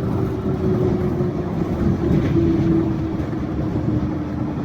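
Yurikamome Line rubber-tyred automated train running along its guideway, heard from inside the car: a steady rumble of tyres and running gear, with a motor whine that slowly falls in pitch.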